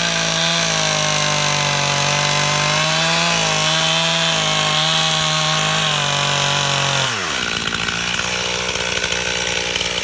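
Two-stroke Stihl chainsaw at full throttle cutting into a tree stump, its pitch dipping slightly now and then under load. About seven seconds in the throttle is let off and the engine falls to idle.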